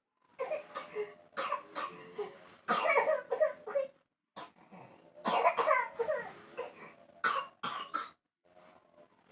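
A young child coughing in repeated fits, about seven bursts of heavy, voiced coughing with short pauses between them. It is a severe cough that has not cleared up.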